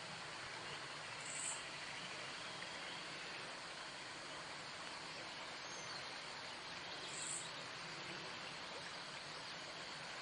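Steady outdoor ambient hiss with two short, high-pitched chirps, one about a second and a half in and another about six seconds later.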